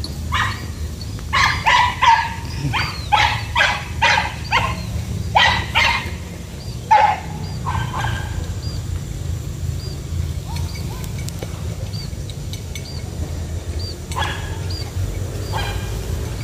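Hunting dogs barking in a quick run of about a dozen barks over the first eight seconds, then two more barks near the end.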